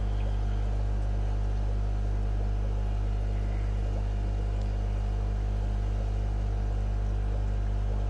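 Steady low electrical hum of running aquarium equipment, with an even hiss over it and no change throughout.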